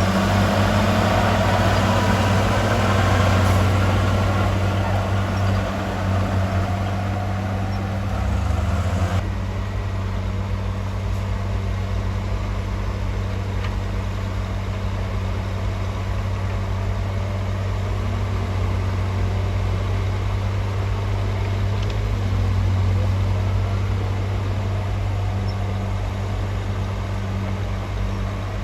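Heavy diesel engine of earthmoving machinery running steadily at a low pitch. There is a busy upper clatter over it that drops away abruptly about nine seconds in, leaving mostly the low engine drone.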